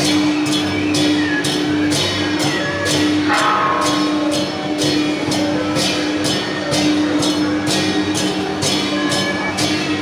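Temple-procession percussion: cymbals crashing in a steady beat, about two strikes a second, over a steady held tone.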